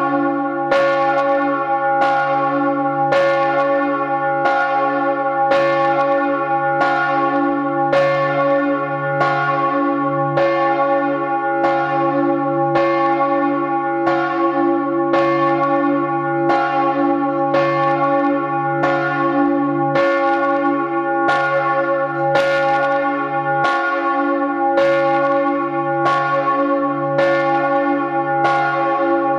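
Large bronze church bell (the Michael bell, cast in 1950 by Georg Hofweber of Regensburg) swinging at full swing, its clapper striking a little more than once a second over the continuous hum of the bell's ringing tones, heard close up in the bell chamber. This is the Vorläuten, the bell's call before Sunday mass.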